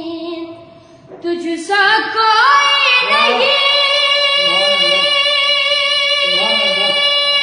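A boy singing a naat, his voice dropping away briefly about a second in, then climbing in steps into one long high held note.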